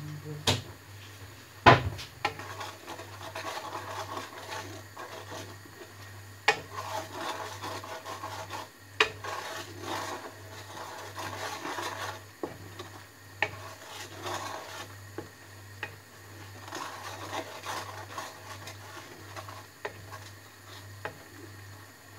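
A spatula scraping and stirring in a metal pan, with sharp knocks now and then, the loudest about two seconds in.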